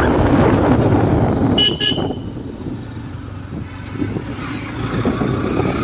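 Wind buffeting and rumble on the microphone of a moving motorbike, with a vehicle horn giving two short toots about one and a half seconds in; the rumble drops off after the horn.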